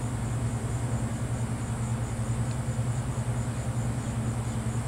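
Steady low mechanical hum from a running machine, unchanging throughout, with a faint high steady whine above it.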